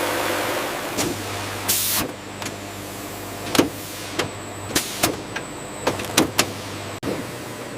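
Machinery running with a steady low hum, irregular sharp clicks and clanks, and a short hiss about two seconds in.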